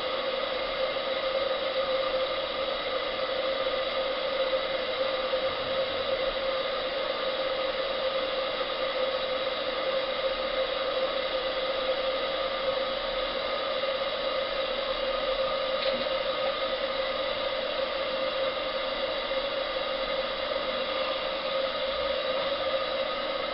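28mm solid-brass butane burner running steadily, a constant rush of burning gas with a steady hum, heating a model steam boiler from cold before it makes any steam.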